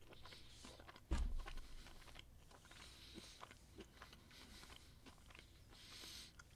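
Biting into a crispy fried chicken sandwich about a second in, then quiet chewing with faint, scattered mouth clicks.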